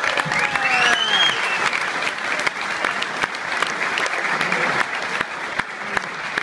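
Audience applauding: a steady patter of many hands clapping, with a few voices whooping and calling out over it in the first second or so.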